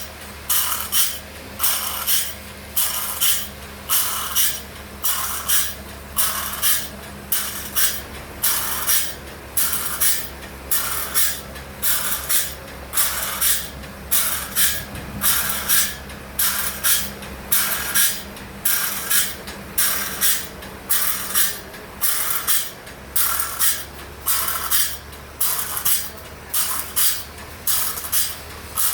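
Band sawmill working a large log: a steady motor hum under a hissing, rasping sound that surges roughly once a second.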